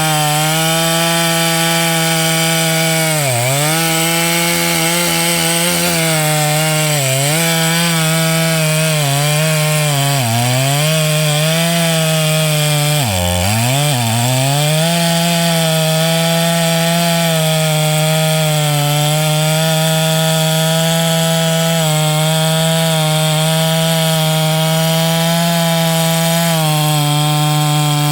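John Deere CS62 two-stroke chainsaw running at high revs while cutting oak. Its pitch dips sharply several times in the first half as the chain bogs down under load, then recovers and holds steady.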